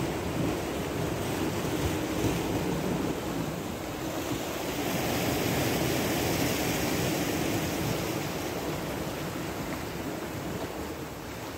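Sea surf washing and churning against shoreline rocks, a steady rushing wash that swells a little midway, with some wind on the microphone.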